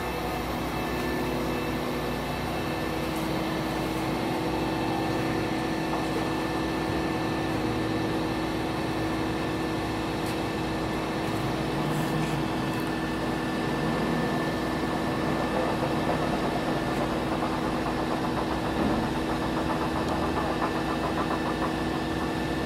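Volvo EC220EL excavator's diesel engine running steadily with a constant hum while its hydraulic elevating cab is lowered.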